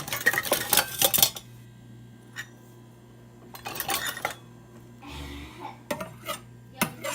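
Dishes and cutlery clattering and clinking in bursts, with a short hiss about five seconds in.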